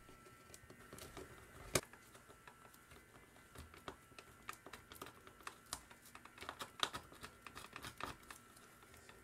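Faint, scattered small clicks and ticks of hard plastic as a plastic pry tool and a small screwdriver work at a food scale's plastic housing. One sharper click comes about two seconds in, and the clicks come thicker a little past the middle, the loudest around seven seconds in.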